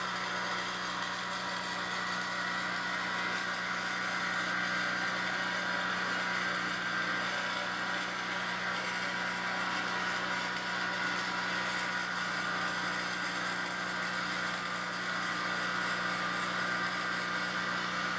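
A steady mechanical hum, even and unchanging throughout.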